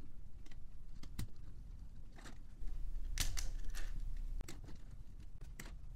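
Plastic LEGO Technic parts clicking and snapping as a pinned subassembly is pressed onto the model by hand: a handful of sharp clicks, with the loudest cluster about three seconds in.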